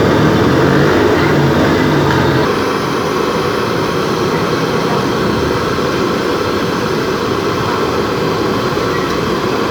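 A steady, loud noisy roar like nearby road traffic, with a vehicle engine's low hum that drops away about two and a half seconds in.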